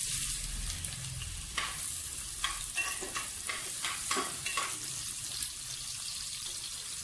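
Sliced onions sizzling in hot oil in an aluminium pressure cooker, the sizzle starting loudly as they drop in. A spatula stirs them, scraping and clicking against the pot several times in the middle of the stretch, before the frying settles to a steady hiss.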